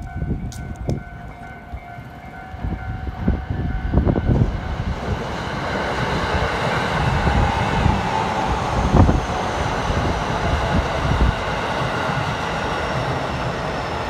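Level-crossing warning bell ringing with its alternating tones, then an electric commuter train passing over the crossing: its running rumble builds from about four seconds in and holds, with wheel knocks at the rail joints, drowning the bell.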